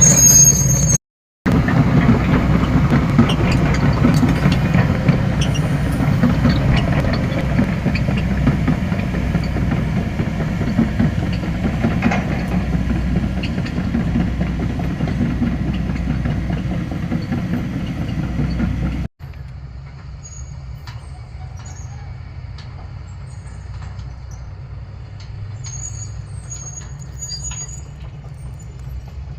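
Heavy machinery such as an excavator running, a loud steady diesel rumble with some clanking, broken by a brief gap about a second in. It cuts abruptly at about 19 s to a quieter steady engine hum with faint high chirps.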